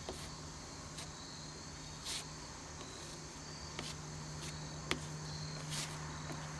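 Crickets chirring steadily, with a handful of short scraping strokes as body filler (Bondo) is spread over a fiberglass tractor fender.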